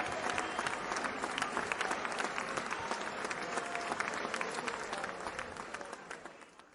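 Crowd applauding, dense hand clapping with a few faint whistle-like tones, fading away near the end.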